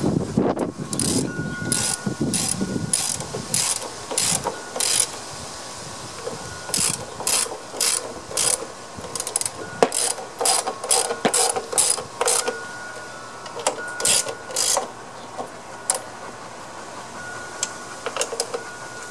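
Socket ratchet wrench clicking as a nut on a lawn mower's drive-wheel assembly is turned: several runs of quick, even clicks, about three or four a second, thinning out near the end.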